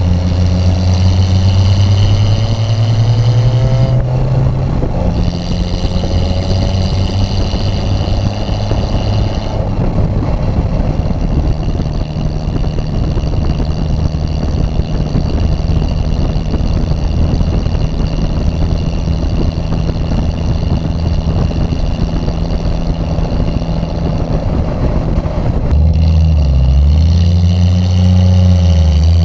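Triumph TR6's straight-six engine pulling the car along: the revs climb over the first few seconds, then it runs at a steady cruise. Near the end the revs fall and climb again.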